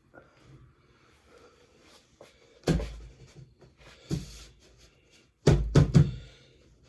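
Clunks and knocks of a steel quick-release rack being fitted onto a bicycle: one heavy thump about three seconds in, a lighter knock a second later, then three quick knocks near the end.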